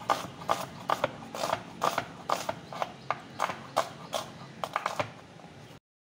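Kitchen knife slicing a red onion on a wooden chopping board: a steady run of knocks, about two to three a second, as each cut goes through to the board. The sound stops abruptly near the end.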